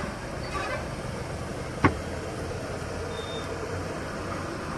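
Steady noise of a wide pan of Manchurian balls bubbling and frying in oily gravy over a burner, with one sharp knock about two seconds in.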